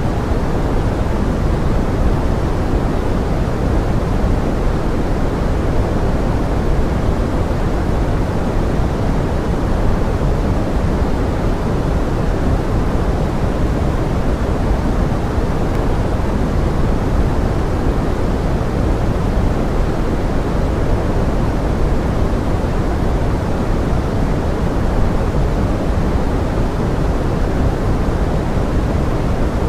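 Steady pink noise offered as forest rain: an even, unbroken hiss weighted toward the low end, with no separate drops or events standing out.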